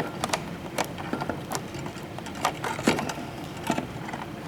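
Plastic wire nut being screwed onto two twisted copper wires, with irregular small clicks and scrapes as it is turned and the wires are handled.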